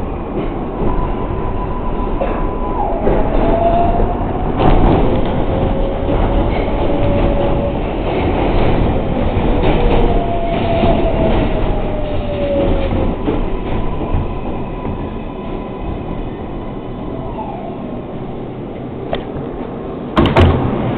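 R142A subway train running through the tunnel: a steady rumble with whining tones that rise and fall a few times, and a sharp knock near the end.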